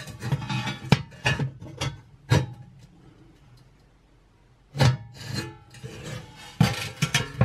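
Metal scraping and clicking as a hand works at the sheet-metal fan cover at the back of a fan oven's cavity. The clicks come in clusters, stop for about two seconds in the middle, then start again.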